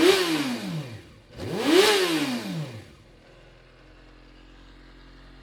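Kawasaki ZXR400's inline-four engine blipped twice, its pitch rising and falling each time, then settling to a steady idle about three seconds in.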